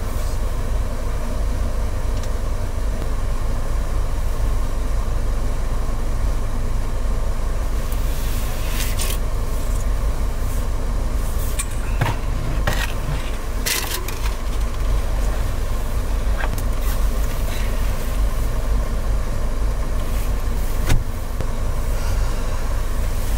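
Steady low rumble of the 1997 Land Rover Defender's engine idling, heard from inside its rear cab. Scattered clicks and scrapes of equipment being handled sit over it, with one sharp knock near the end.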